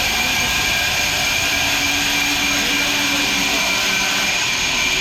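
Sawmill machinery running steadily: a loud, even whine with a constant high tone through it.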